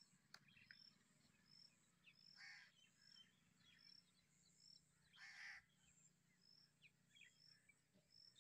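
Near silence: faint outdoor ambience with a faint high chirp repeating about every three-quarters of a second and two short, harsher calls about two and a half and five and a half seconds in.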